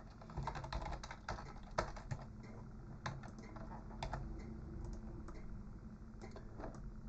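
Typing on a computer keyboard: a quick run of key clicks in the first two seconds or so, then scattered single taps.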